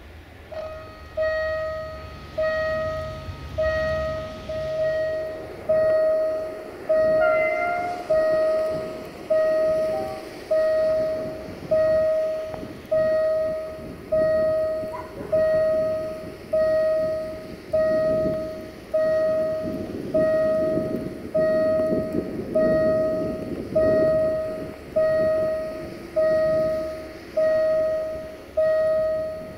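Level-crossing warning bell ringing about once a second, each strike a clear pitched ding that fades. The bell signals that a train is approaching, and from about halfway a rumble, the approaching train, builds underneath it.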